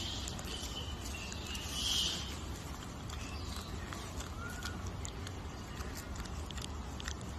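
Short high-pitched animal calls, one at the start and a stronger one about two seconds in, then a few fainter short calls, over a low steady hum with scattered faint clicks.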